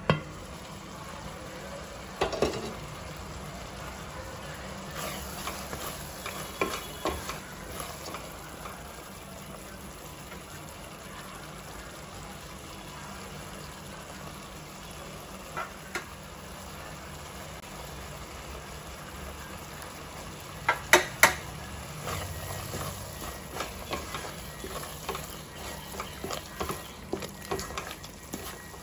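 Onion-tomato masala sizzling steadily in a pan while a wooden spatula stirs and scrapes it. Scattered sharp knocks and clicks come through it, with three in quick succession about two-thirds of the way through and frequent small knocks of stirring near the end.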